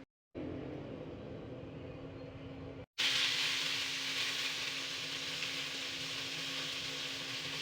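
Food frying in hot oil: a steady sizzle that starts abruptly at a cut about three seconds in, over a constant kitchen hum; before the cut only the hum is heard.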